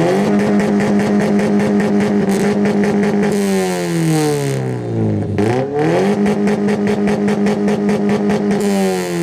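Non-turbo 2005 Subaru Impreza's flat-four boxer engine revved hard through its exhaust and held at a steady high rpm for a sound-level reading. It holds for about three seconds, drops back toward idle, then revs up again and holds before falling away near the end.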